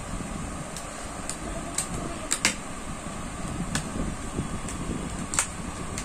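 A cardboard RAM box being opened by hand and its plastic blister tray slid out: a run of sharp clicks and snaps of card and plastic, the loudest about two and a half and five and a half seconds in, over a steady background hum.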